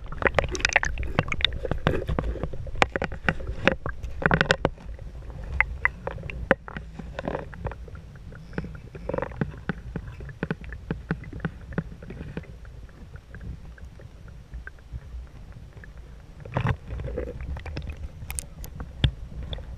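Muffled underwater rumble of river current heard through a submerged camera's waterproof housing, with many sharp clicks and knocks on top, thickest in the first few seconds and again near the end.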